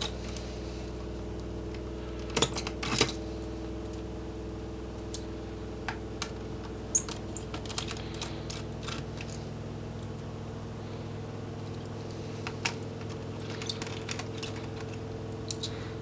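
Scattered small metal clicks and clinks of a Phillips screwdriver backing out the screws that hold a laptop's 2.5-inch hard drive, and of the loose screws being handled, with a cluster of clicks a couple of seconds in. A steady low hum runs underneath.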